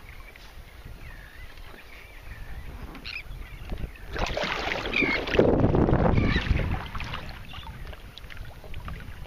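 Wind and water noise around a kayak on open bay water, swelling loudest from about four to seven seconds in, with a rumble of wind on the microphone. Faint bird calls sound in the first second or so.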